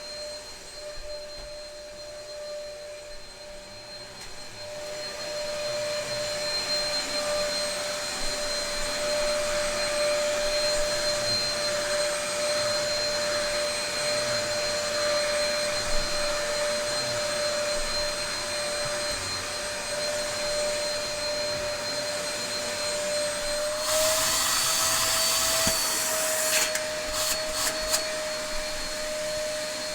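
Dyson DC03 upright vacuum cleaner running, a steady motor whine that is a bit noisy. It grows louder about five seconds in. Near the end a rush of air comes in for a couple of seconds as the pitch lifts slightly, followed by a few clicks.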